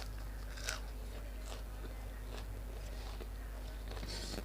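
A person chewing grilled pork and sticky rice with wet mouth sounds, about one chew a second, over a steady low hum.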